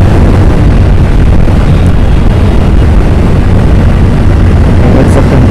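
Motorcycle riding at speed: a loud, steady rumble of wind on the microphone mixed with engine and road noise.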